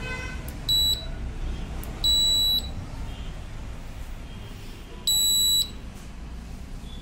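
Whirlpool split air conditioner circuit board's buzzer beeping at a high pitch in answer to remote-control button presses, a sign that the repaired board is receiving the remote's commands. A short beep about a second in is followed by two longer beeps of about half a second, near two and five seconds.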